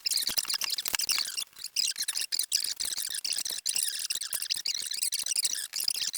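Rubber tire and inner tube being worked onto a bicycle rim by hand: continuous high squeaking and scraping of rubber against the rim, with many quick rubbing strokes.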